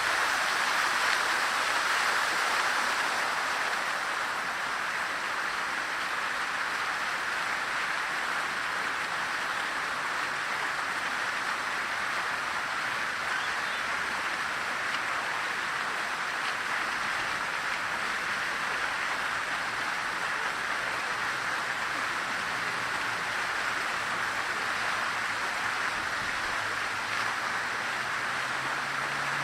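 Statue fountain's water jets splashing steadily into the basin, an even rush of falling water.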